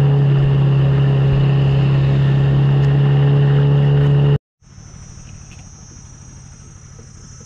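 Small boat's outboard motor running at a steady cruising speed, an even hum with the rush of water; it cuts off abruptly about four seconds in. After it, a much quieter steady high drone of insects.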